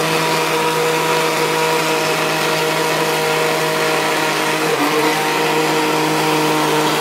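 Kenwood countertop blender running at speed, puréeing green cassava leaves (pondu) into a thick paste: a steady motor whine over churning, whose pitch shifts briefly about five seconds in.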